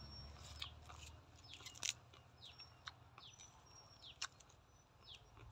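Faint clicks and crunches of food being picked apart and chewed by hand and mouth, the sharpest about two seconds in, with a bird chirping in short falling notes repeated every half second or so in the background.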